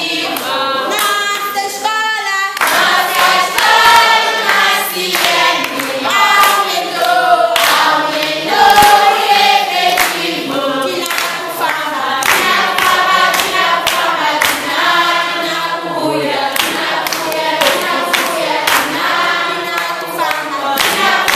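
A choir singing together with handclaps throughout.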